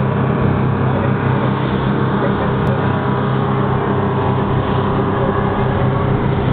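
Dive boat's engines running steadily at speed, a constant low hum, over the rushing churn of the wake behind the stern.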